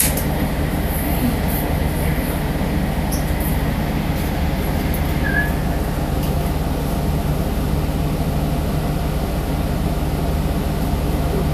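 Steady interior drone of a moving city bus: low engine hum with road and running noise heard from inside the cabin.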